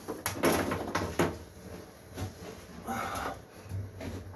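A few light clicks and knocks from small parts and wire being handled, clustered in the first second, then a softer rustle about three seconds in.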